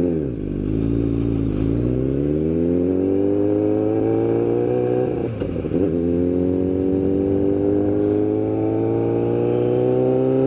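Sport motorcycle's engine accelerating, its pitch rising. It shifts up about a second and a half in, and again about five seconds in, then pulls slowly higher in the next gear.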